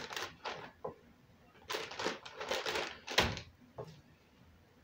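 Plastic zip-top freezer bag crinkling as handfuls of sliced onions are pushed into it, in a few rustling bursts, with a single thump about three seconds in.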